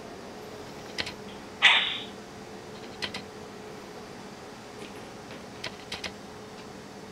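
Munchkin cat chattering: scattered sharp clicks with one louder, harsh burst about two seconds in, the excited sound a cat makes while watching prey it cannot reach.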